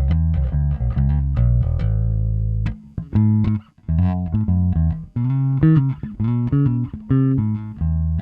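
Nordstrand Acinonyx short-scale electric bass playing a line of plucked notes, with both pickups in series on the first tone setting. There are short breaks about three and four seconds in, and higher notes and double-stops in the middle.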